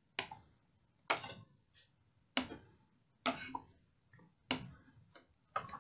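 Computer mouse clicking: five sharp single clicks, unevenly spaced about a second apart.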